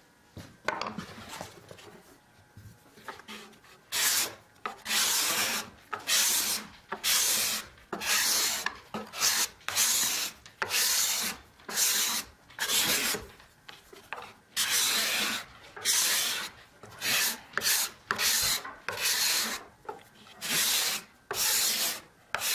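A hand-sharpened steel cabinet scraper is pushed across a piece of wood in repeated strokes, each a short scraping hiss. The first few strokes are lighter; from about four seconds in they come evenly, about one a second.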